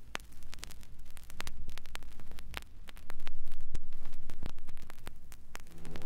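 Vinyl record surface noise in the quiet groove between pieces: scattered clicks and pops from the stylus over a low rumble and hum. Orchestral music starts again right at the end.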